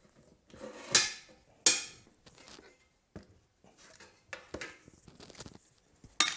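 One-handed trigger bar clamps being released and taken off a plasterboard template: a series of sharp clicks and clattering knocks, the loudest about a second in and again just before the end.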